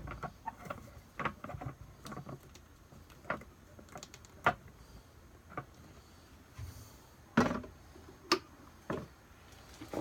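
Irregular clicks, taps and knocks of objects being handled and set down on a workbench, with a louder knock about seven and a half seconds in and another about a second later.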